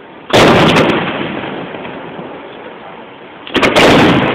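Two aerial firework shells bursting, about three seconds apart: each a loud bang followed by a long rolling echo that fades away.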